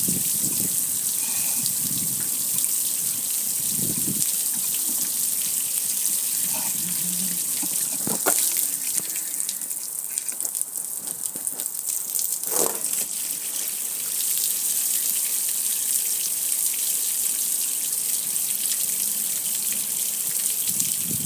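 Water from a garden hose spraying onto a metal gas grill, splashing and running off the lid and control panel with a steady hiss. The spray eases off for a few seconds in the middle, with two brief knocks, then comes back full.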